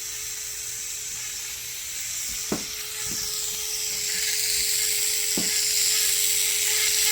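Small handheld electric mixer running, stirring resin in a cup: a steady hum under a hiss that grows louder, with a few light taps.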